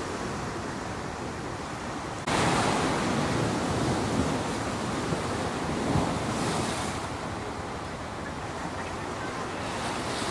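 Wind on the microphone over the wash of sea water: an even rushing noise that jumps suddenly louder about two seconds in.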